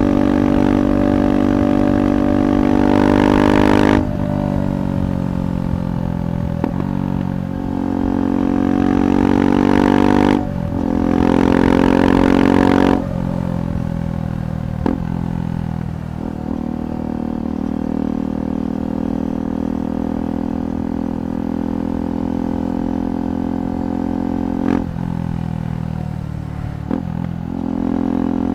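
KTM 390 Adventure Rally's single-cylinder engine through an aftermarket Red Rooster performance exhaust, under way. The pitch climbs and drops sharply about 4 seconds in, and again around 10 and 13 seconds in as the throttle closes or a gear changes. After that it runs at a steady cruise, with brief dips near the end.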